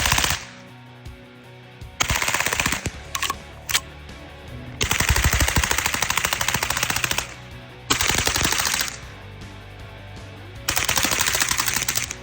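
Daniel Defense airsoft replica rifle firing in rapid full-auto bursts, a fast typewriter-like clatter of shots. There are about five bursts, the longest about two and a half seconds in the middle, with a couple of single shots between the early bursts.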